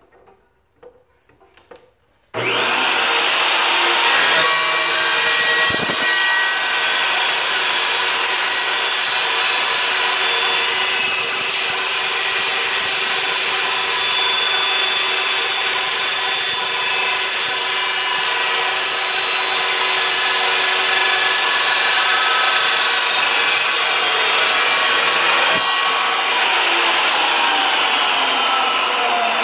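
Evolution Rage2 metal-blade chop saw starting up about two seconds in and cutting through 14-gauge steel tubing: a loud, steady cutting noise with ringing tones from the blade and steel. Near the end the tones slide down in pitch as the blade winds down.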